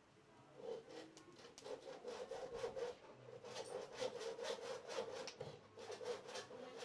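Feathers being plucked by hand from a white chicken's neck: a quick run of short rasping strokes, starting about a second in.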